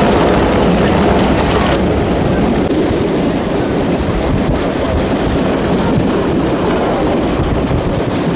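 Steady running noise of a moving passenger train heard from inside a carriage at the window: wheels rumbling on the rails with air rushing past.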